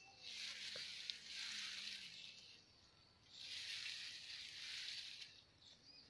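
A high hiss of insects that swells and fades in long waves: loud for the first two seconds, dying down, then rising again from about three and a half to five seconds in.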